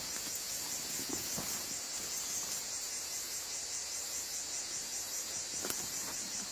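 A steady, high-pitched insect chorus with a fine pulsing, over a low even hiss.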